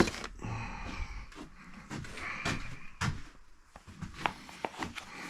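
Handling noise: scattered light clicks and knocks, about half a dozen, over soft rustling, as someone moves around the motorcycle's handlebar.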